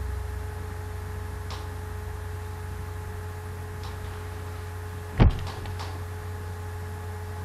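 Steady low electrical hum and hiss, with a couple of faint clicks and one loud thump about five seconds in, followed by a few light clicks.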